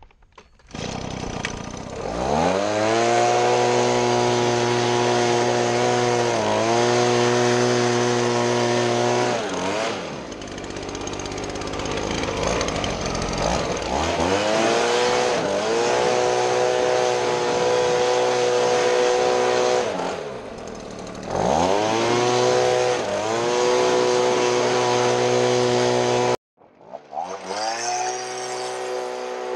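Gas-powered leaf blower throttled up four times: each time the engine pitch climbs to a steady high note over the rush of air, holds for several seconds, then falls back toward idle. The sound cuts off abruptly about 26 seconds in and starts rising again right after.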